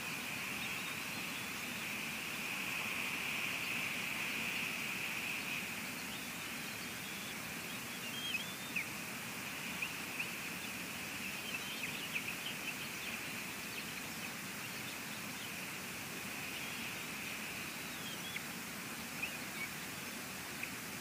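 Steady hiss of rain and wind on an outdoor nest-camera microphone. Scattered short, high chirps come about eight seconds in and again near the end.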